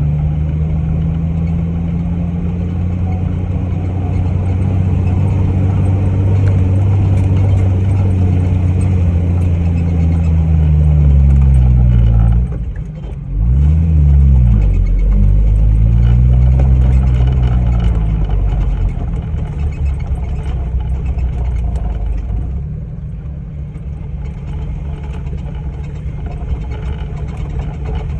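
Jeep engine driving under load, its pitch rising and falling as it revs. About twelve seconds in the revs drop briefly and sweep back up, and from about twenty-two seconds it runs quieter.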